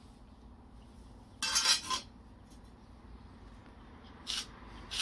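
Bricks knocking and scraping against each other as they are set into an edging row: a longer, louder scrape-and-clink about a second and a half in, and a shorter clink near the end.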